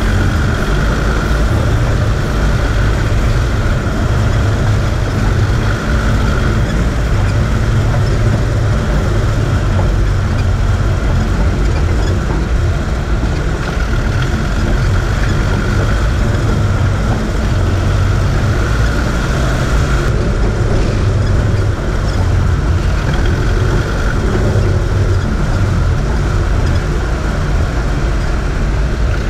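Land Rover Discovery 2 driving along a rocky dirt track: steady engine and road noise from the moving vehicle.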